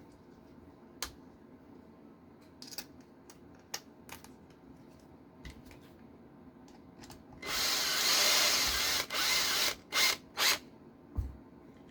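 Small power driver running a screw into the RC car's pivot bracket: one run of about two seconds, then two short bursts as the screw is snugged down. Light clicks of small parts being handled come before it.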